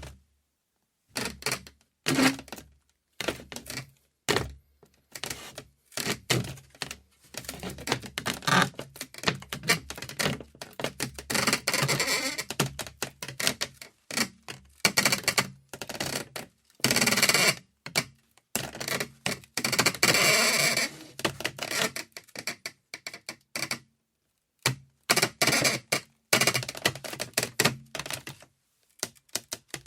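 Wood creaking in an irregular run of crackling creaks and ticks, some drawn out for a second or two. Short spells of silence fall between them.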